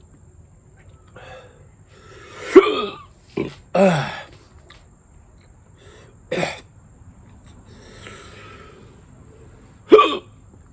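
A man hiccuping repeatedly: about five sharp hiccups, some with a short voiced squeak that drops in pitch, with faint heavy breathing between them. The hiccups are set off by the super-hot chili chip.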